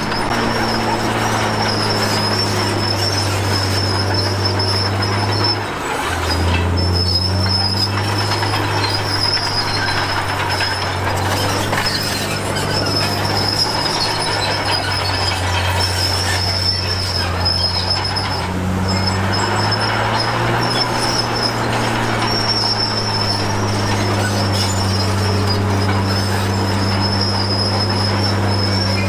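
Komatsu D53P crawler bulldozer's diesel engine running with a steady low hum, its steel tracks giving a high, thin squeal that breaks off now and then. The engine note drops briefly about six seconds in and climbs again near twenty seconds.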